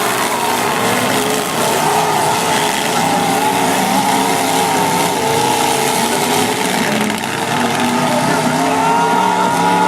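Several demolition derby cars' engines revving hard at once, their pitches wavering up and down over a steady rushing din, with tyres squealing.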